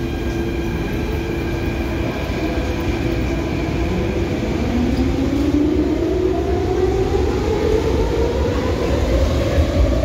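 Athens metro train pulling out of the station: from about halfway its traction motors give a whine that rises steadily in pitch as it gathers speed, over a low rumble from the train.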